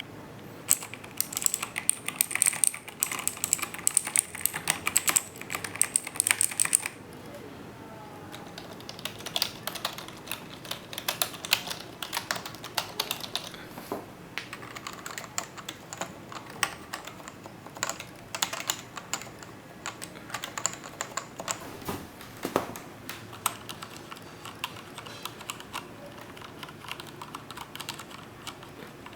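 Typing on a series of computer keyboards one after another, comparing mechanical, rubber dome and Topre key switches. The first has crisp, high clicks; about seven seconds in the keystrokes turn duller, and the sound changes again about halfway through.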